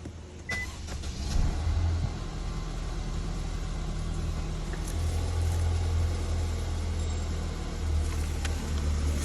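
Infiniti Q50's engine running at idle with a steady low hum. A short, high beep sounds about half a second in.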